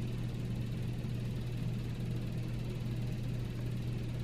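A steady low hum with a faint hiss behind it, unchanging throughout: background machine noise in the room.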